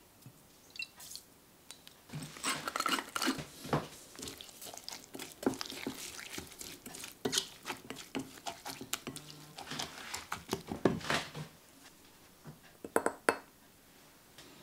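Chopped tomato salsa being stirred and folded with a silicone spatula in a glass bowl: a long run of stirring with quick clicks and taps against the glass, which stops, followed by a few sharp clicks near the end.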